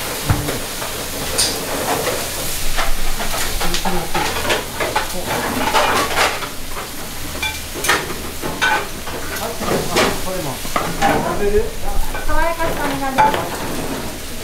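Hamburg steaks sizzling in skillets on a commercial gas range, with repeated clicks and knocks of the pans being handled and stirred on the grates.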